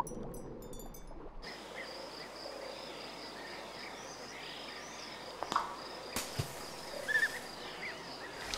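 Outdoor nature ambience: a steady high insect trill over a low hiss, coming in about a second and a half in, with a few short chirps and soft knocks in the second half.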